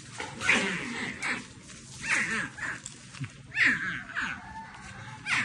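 An animal calling: about five short, separate calls at uneven gaps of roughly one to one and a half seconds.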